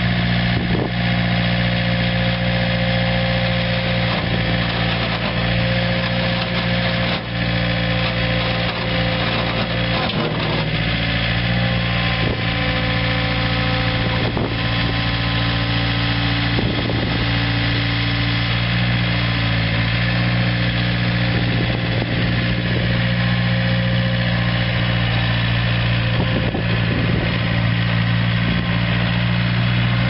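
John Deere 7775 skid steer's four-cylinder diesel engine running steadily while the machine is operated, with a few knocks along the way. The engine note drops slightly for a stretch in the middle, then comes back up.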